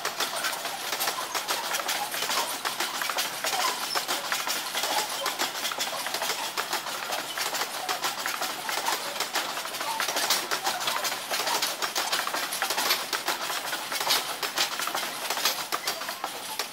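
Loaded grain hopper cars of a freight train rolling past, with a steady, dense clatter and rattle of wheels on the rails.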